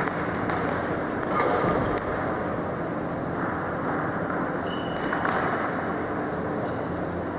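Scattered light clicks of table tennis balls striking tables and bats, over a steady background noise in a large sports hall.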